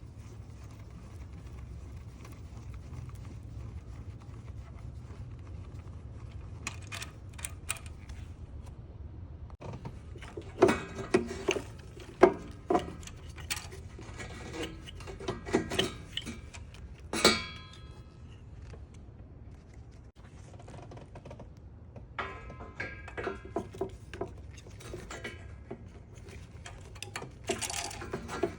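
Metal hand tools and parts clinking and clicking in irregular bursts over a low steady hum, with a few louder knocks; the work of taking out ignition coils and spark plugs.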